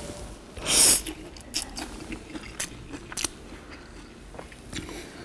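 A person eating stir-fried noodles: a loud slurp a little under a second in, followed by scattered soft chewing and mouth clicks.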